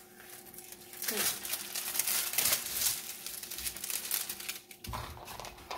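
Clear plastic protective film on a diamond painting canvas crinkling and rustling as it is lifted and handled by hand, a jumble of small crackles starting about a second in.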